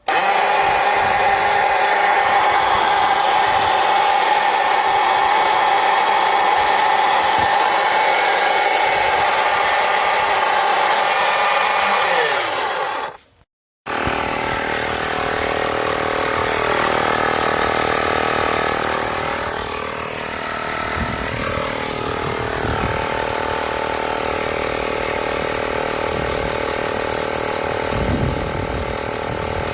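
Portable 12V tyre-inflator air compressor running with a loud, steady mechanical buzz, its pitch sinking as the motor winds down after about 12 seconds. After a short break, a steady machine sound runs on.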